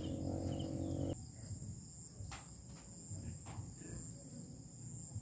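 Steady high-pitched drone of insects. A low hum underneath cuts off abruptly about a second in, and a few faint sharp clicks follow.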